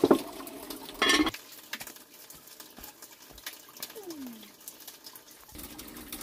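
Fish being cleaned by hand in a metal pot and plastic basin under running water: a sharp knock at the start and a short splash about a second in, then light clinks and knife scraping, with trickling water returning near the end.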